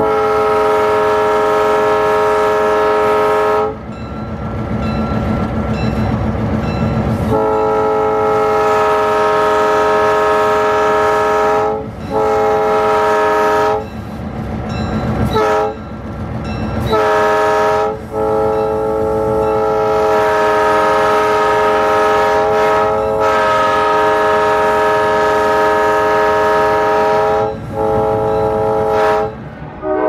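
Nathan P3 three-chime locomotive air horn sounded in a string of blasts of different lengths: a long blast, a pause of a few seconds, then more long blasts broken by a couple of short toots around the middle. The diesel locomotive's engine rumbles underneath and is heard alone in the gaps.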